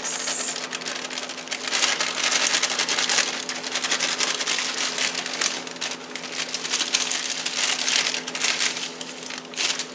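Dry cake mix pouring out of its bag onto fruit filling: a steady, dry rustling hiss with fine crackles, fuller from about two seconds in.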